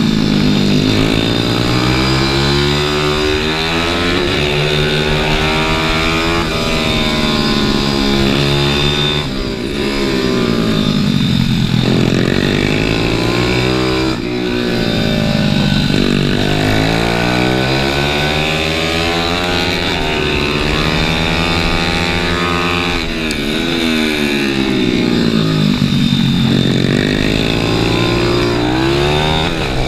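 A small dirt-bike-style motorcycle's engine, heard from on board while it laps a track: the revs climb through the gears and then fall away under braking, several times over, with short dips in loudness as the throttle is closed.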